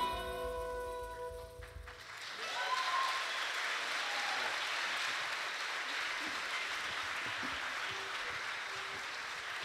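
A closing chord on the ensemble's plucked strings rings out and fades about two seconds in, and audience applause takes over.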